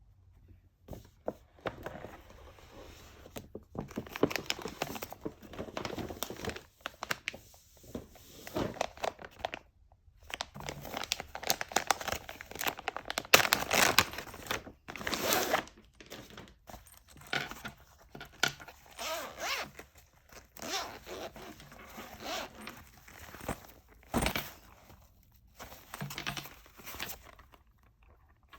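Packaging being handled: irregular bursts of tearing, rustling and crinkling of plastic and paper wrapping.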